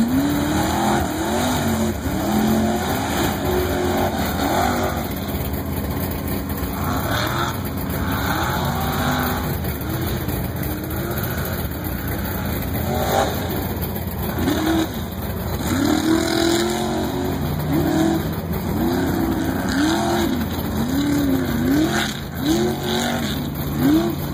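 Mega truck's big engine racing under hard throttle, its pitch climbing and dropping again and again as it powers across the dirt course.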